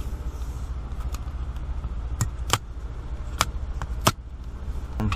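A few sharp plastic clicks and taps as a thin interior trim strip along the windshield edge is handled, over a steady low hum.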